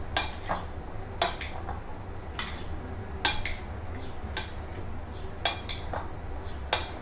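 A serving spoon stirring a chickpea salad in a glass bowl, clinking sharply against the glass about nine times at an uneven pace, with a soft squish of the mix between knocks. A steady low hum runs underneath.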